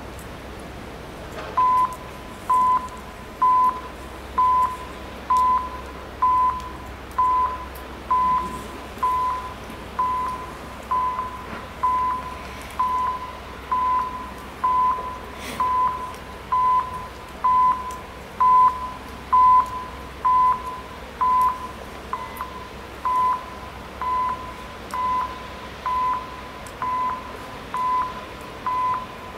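Electronic warning beeper of a railway level crossing, sounding one steady high tone in short beeps about once a second, starting a couple of seconds in.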